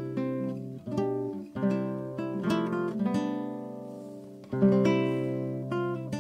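Acoustic guitar music: plucked chords and single notes struck every second or so and left to ring out.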